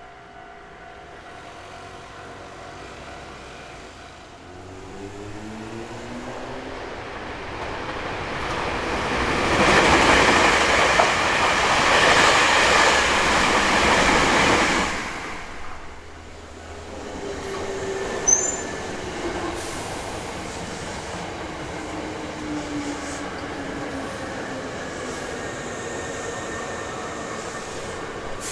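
Hankyu Kyoto Line electric train passing a level crossing. Its wheel and motor noise builds from about four seconds in, is loudest for about five seconds as the train goes by close up, then drops off sharply. After that, quieter train running noise carries on to the end, with a motor tone falling in pitch, while the crossing's warning bell rings steadily underneath.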